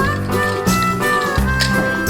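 Background music: an upbeat instrumental with a steady beat, its bass notes changing about every three quarters of a second.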